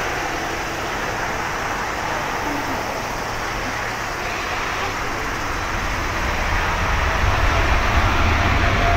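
Boeing 787-9 Dreamliner's GEnx turbofan engines running as the airliner taxis slowly. The jet noise is a steady rushing haze that grows louder, with a deeper rumble, about two-thirds of the way through.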